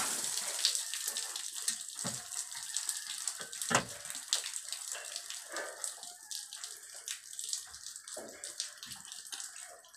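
Rinse water trickling and dripping off a split air conditioner's outdoor condenser unit just after the hose spray is shut off. The trickle slowly fades, with scattered drops.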